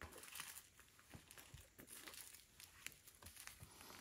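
Faint crinkling and rustling of small plastic zip-lock bags of diamond-painting drills being handled, in scattered light crackles.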